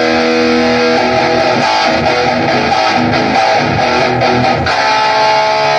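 Electric guitar strummed loudly through an amplifier, giving a dense, steady wall of chords.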